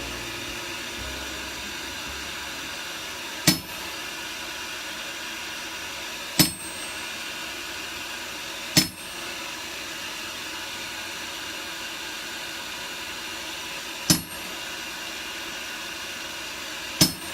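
Five single, sharp hammer blows on metal, spaced a few seconds apart, each ringing briefly, as score marks are struck into the steel leaf's veins. A steady hiss runs underneath.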